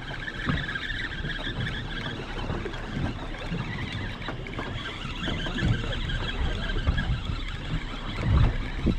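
Steady rumble and wash of a fishing boat at sea, with a faint high whine in the first couple of seconds and a low thump near the end.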